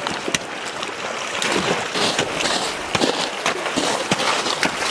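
Waders splashing and crunching through slushy ice in shallow river water, with many sharp, irregular clicks over a steady rush of water.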